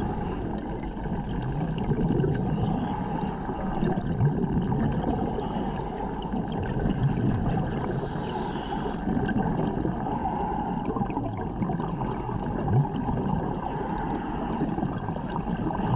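Muffled underwater noise heard through a diving camera's housing: a steady low wash of water sound.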